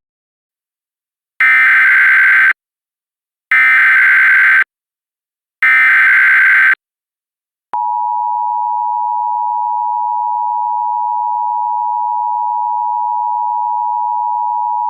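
Emergency Alert System tones: three one-second bursts of warbling SAME digital header data, evenly spaced, then about a second later the steady two-tone EAS Attention Signal (853 and 960 Hz) starts and holds. Together they announce an emergency alert broadcast, here a dust storm warning.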